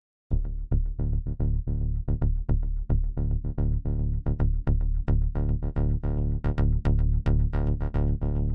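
Electronic background music with a steady, driving beat over a heavy bass, starting just after the opening.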